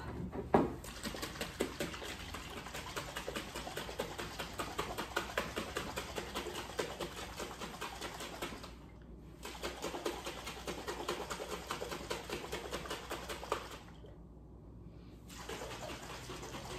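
Lemon poppy seed dressing sloshing in a lidded glass mason jar shaken hard by hand, a rapid, even sloshing rhythm. A knock comes right at the start, and the shaking stops briefly twice, about 9 and 14 seconds in.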